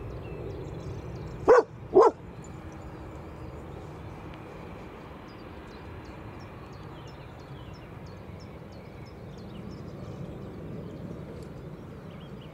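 A dog barks twice in quick succession, loud and close, about a second and a half in. Behind it is the steady low rumble of a Boeing 787-8 jet airliner rolling along the runway.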